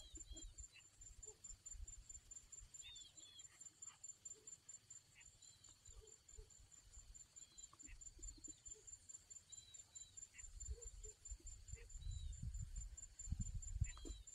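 Faint, scattered short chirps of small birds, about one every second or two, over a steady high-pitched insect trill. Low rumbling on the microphone comes in toward the end.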